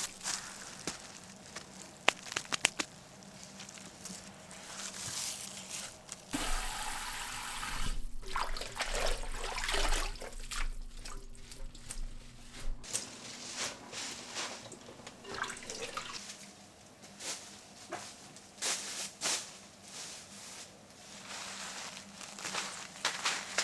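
Water trickling and dripping, with scattered light clicks and knocks. A steadier rush with a low hum under it runs for several seconds in the middle.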